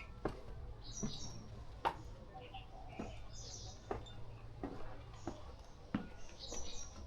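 Small birds chirping in short high bursts, three times. Under them are steps on the street, a sharp click about every second, and a steady low hum of street ambience.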